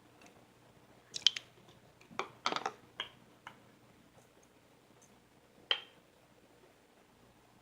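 A handful of short, sharp clicks and taps: a pair about a second in, a quick cluster a little after two seconds, and a single one near the end. A faint steady low hum runs underneath.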